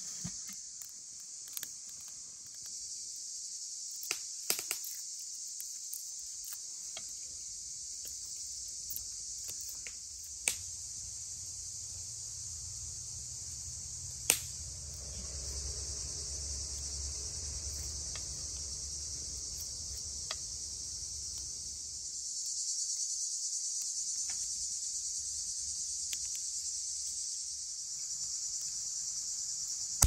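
Steady high-pitched chirring of insects, with a few sharp clicks scattered through and a low rumble that comes and goes midway.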